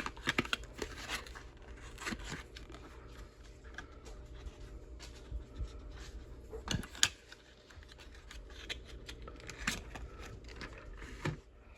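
Handling noise from small cardboard ammunition boxes: scattered clicks, taps and scrapes as they are picked up, turned and set down, the sharpest ones near the start and around the middle.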